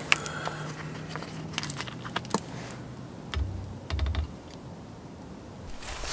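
Scattered light clicks and taps of a plastic soju bottle and small cups being handled, with a couple of dull low thumps about three and a half and four seconds in.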